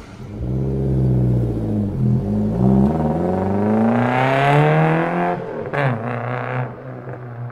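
A car engine accelerating hard, its pitch climbing, dropping once about two seconds in as if at a gear change, then climbing again before easing off to a steady low hum.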